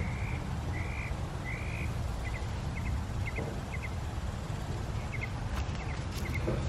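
A bird calling outdoors: a run of short, even notes about a second apart, then a few quick double chirps, over a steady low rumble.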